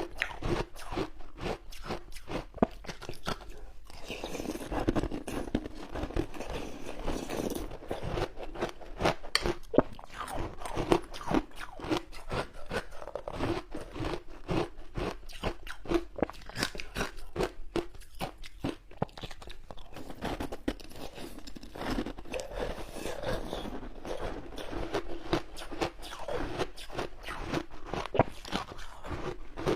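Ice being bitten and chewed close to the microphone: a continuous run of sharp, irregular crunches.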